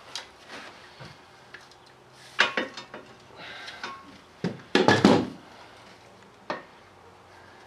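Metal tools and valve-train parts clinking and clanking against each other while valve springs are removed from a Cummins diesel cylinder head. The sound is a run of irregular knocks, with two louder clusters about two and a half and five seconds in.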